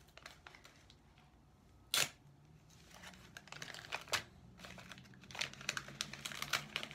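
Paper envelope and its contents being handled: rustling and crinkling, with a sharp knock about two seconds in, a smaller one about four seconds in, and a flurry of small clicks and rustles near the end.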